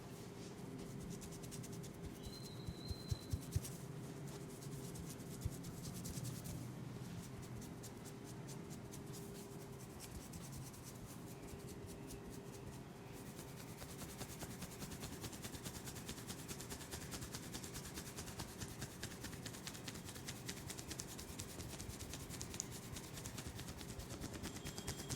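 Hands rubbing over a person's head and hair during a massage, a steady close-up scratchy rubbing, with a few sharp clicks about three seconds in and again a couple of seconds later, over a faint steady hum.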